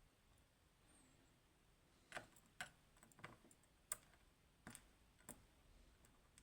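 Faint, sharp clicks of small metal lock parts being handled during the disassembly of a Goal Grand V dimple lock: about six separate clicks over a few seconds, starting about two seconds in.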